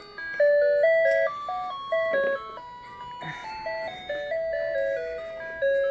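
A baby toy's electronic melody: a tinny tune of clean, evenly stepped notes, like a baby walker's musical play panel. A couple of soft knocks fall about two and three seconds in.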